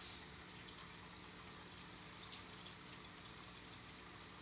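Near silence: steady low hum and hiss of room tone, with a brief rustle of the picture book being handled right at the start and a couple of faint ticks.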